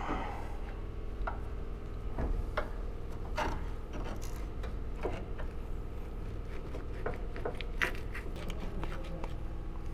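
Scattered metal clicks, knocks and scrapes of hand work on a car's anti-roll bar bushing and its bracket, over a steady workshop hum.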